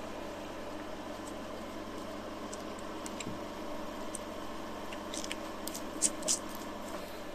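Steady hum of equipment, with soft crackles and rustles of cotton gauze being wiped over a hedgehog's wound near the end, two of them sharper about six seconds in.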